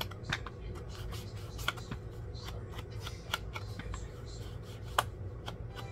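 Paper and cardstock being handled during crafting: scattered rustles and light taps, with one sharper click about five seconds in, over a low steady hum.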